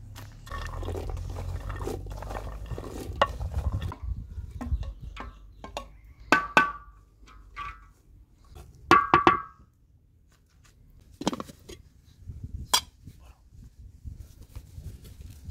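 Stainless steel pots, bowls and lids knocking and clinking as they are handled, with two loud ringing metal clanks about six and nine seconds in, among lighter clicks and rustling.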